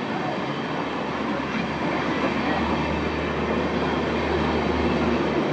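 Passenger train running through a station without stopping, its coaches giving a steady noise of wheels on rail that grows slightly louder.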